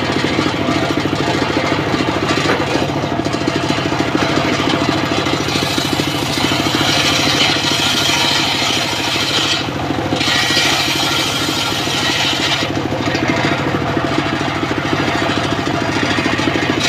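Homemade engine-driven circular saw bench running steadily while its blade rips boards lengthwise into rafters. The high cutting noise rises from about a third of the way in and breaks off briefly twice, as the board is fed through.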